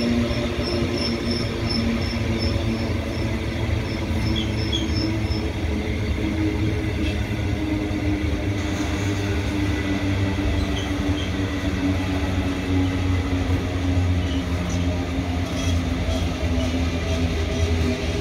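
Cattle train's livestock wagons rolling steadily past: a continuous rumble of wheels on rail with a steady squeal from the wheels. A quick, high pinging runs through the first five seconds or so.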